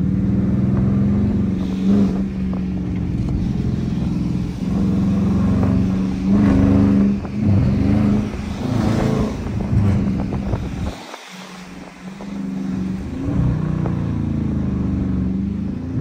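Dodge Charger R/T's 5.7-litre Hemi V8 engine running as the car is driven, heard from the cabin, its pitch rising and falling a few times. It drops off sharply about eleven seconds in, then picks up again.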